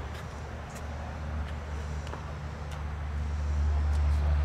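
A car engine running with a steady low rumble that grows louder over the second half.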